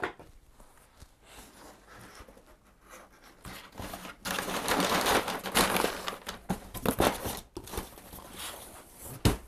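Cardboard boxes and packaging being shoved and slid across a desktop, a rustling, scraping noise that is loudest in the middle few seconds, with a short thump near the end.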